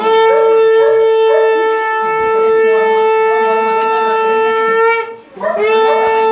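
Conch shell (shankha) blown as the auspicious call of a Hindu blessing rite: one long, steady note of about five seconds, a brief break for breath, then a second long note near the end.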